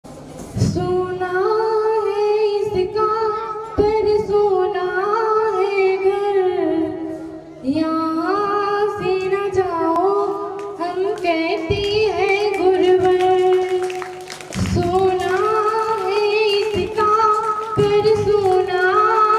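A girl's voice singing solo into a microphone, unaccompanied: long held notes with gliding ornaments, in three long phrases broken by short breaths about seven and fourteen seconds in.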